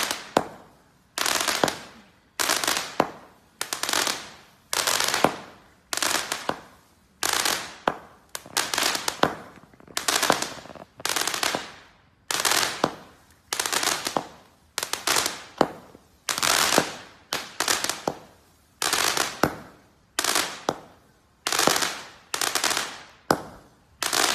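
50-shot firework mini-cake firing its shots one after another, about one every three-quarters of a second; each shot is a sharp report that trails off in a fading hiss over about half a second.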